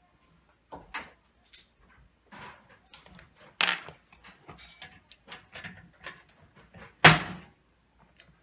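Metal hand tools and hardware clinking and knocking as a socket is tried on a fastener. Irregular clicks and clacks, with one loud sharp clack near the end.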